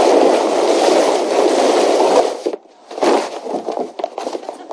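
Studio audience laughter: loud for about two and a half seconds, a brief break, then weaker laughter.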